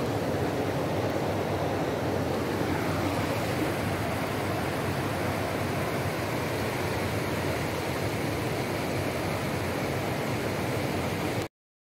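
Steady rushing of river water flowing over rocks, cutting off suddenly near the end.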